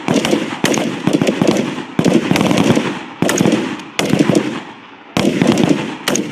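Small arms fire on an outdoor firing range: many sharp gunshots from several shooters at once, irregular and overlapping, each followed by a rolling echo.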